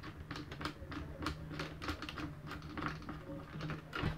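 Light, irregular plastic clicks and taps, a few a second, as hands handle and fit parts into an opened Nerf blaster's plastic shell.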